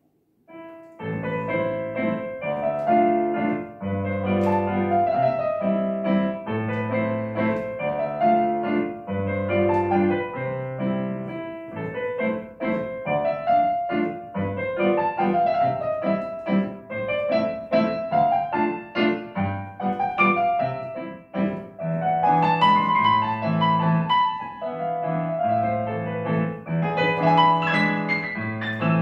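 Solo classical piece played on a digital piano, starting about a second in: a melody in the right hand over a left-hand accompaniment of low bass notes and chords.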